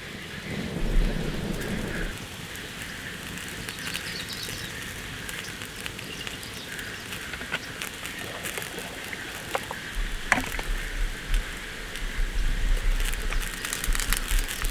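Rain falling on a tent, a steady hiss with many sharp drop ticks that grow denser near the end. From about ten seconds in, a low rumbling joins it.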